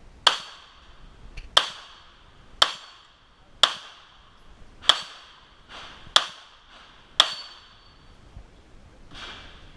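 A small gun firing seven sharp shots, about one a second, each with a short metallic ring.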